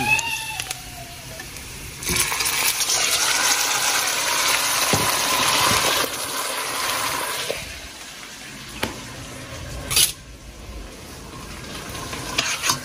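Food sizzling in a hot frying pan: a hiss that comes up suddenly about two seconds in and dies down after about six seconds, with a sharp knock about ten seconds in.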